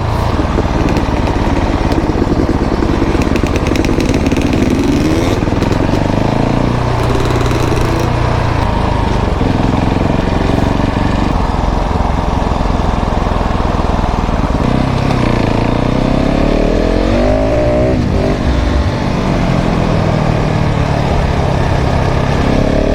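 KTM 690 SMC R's single-cylinder four-stroke engine through a full LeoVince exhaust, under way and revving up and down again and again as the throttle is opened and closed through the bends.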